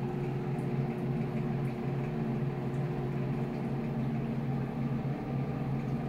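Steady, unchanging machine hum: a low pitched drone with its overtones, like an electric motor or appliance running.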